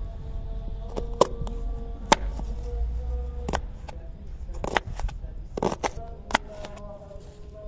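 Kitchen knife chopping a red onion on a plastic cutting board: about six sharp knocks of the blade against the board, coming irregularly roughly once a second, two of them close together near the end.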